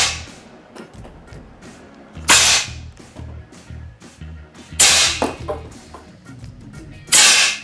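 Four loud, sharp cracks, each with a short hissing tail, evenly spaced about two and a half seconds apart, over background music with a low beat.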